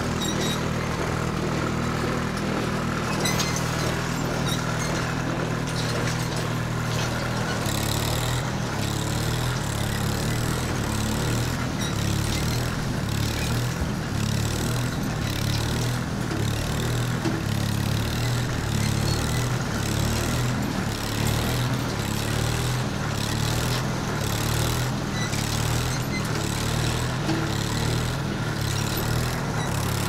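Diesel engine of farm machinery running steadily, with a low hum that grows fuller about eight seconds in and a regular pulse.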